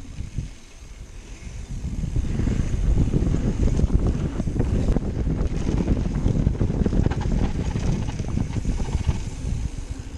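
Wind buffeting the microphone while an Orbea Rallon mountain bike rides fast down a dirt trail, its tyres rumbling over the ground. The rush drops briefly just after the start and builds back up by about two seconds in.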